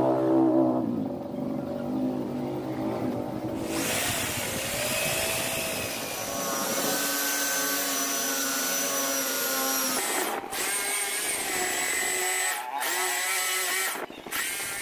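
Electric drill running with a hinge-boring bit, cutting a concealed-hinge cup hole through a drilling jig into a laminated board: a motor whine, joined about four seconds in by the rasping noise of the bit biting into the board. Near the end the drill stops briefly a few times.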